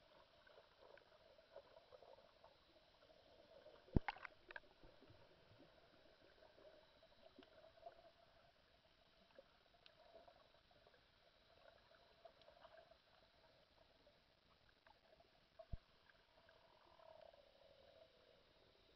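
Faint, muffled underwater ambience picked up by a submerged camera, with a sharp click about four seconds in, another near the end, and a few softer ticks.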